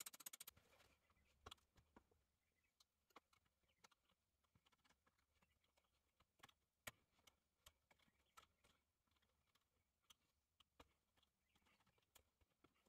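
Near silence, with a quick run of ticks that stops about half a second in, then faint, scattered metal clicks and taps as the parts of an old hand breast drill are turned and handled in a vise.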